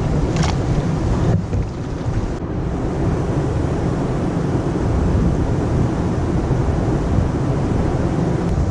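Loud, steady rush of water pouring over falls and rapids, mixed with wind buffeting the microphone.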